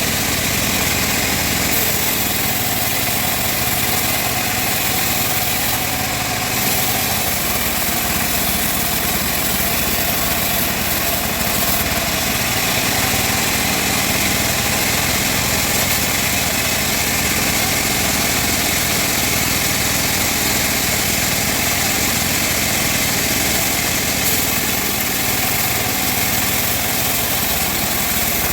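Band sawmill running steadily, a constant machine noise with no let-up.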